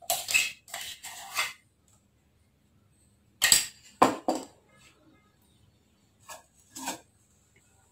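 A metal spoon scrapes and taps inside a stainless-steel mixer-grinder jar as thick banana puree is scraped out. After a pause come three sharp clinks and knocks of kitchenware being handled, then two fainter knocks near the end.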